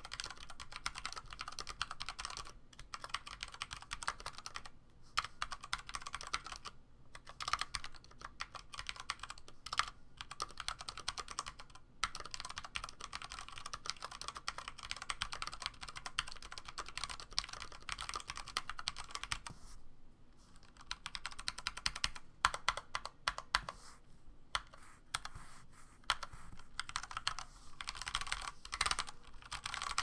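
Continuous fast typing on a Filco Majestouch TKL mechanical keyboard with Cherry MX Brown tactile switches and ABS keycaps: a dense run of keystroke clacks with a few short pauses, and a sparser stretch about twenty seconds in.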